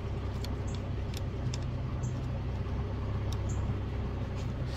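Infiniti G35's 3.5-litre V6 idling steadily, a low hum heard from inside the cabin, with a few faint small clicks as the parts behind the steering column are handled.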